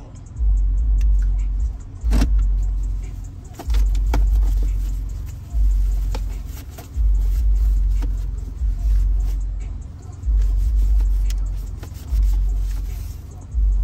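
Deep bass thumps inside a car, one about every one and a half to two seconds, each hitting sharply and dying away slowly, like the bass notes of music on the car's speakers, with scattered light clicks and rattles.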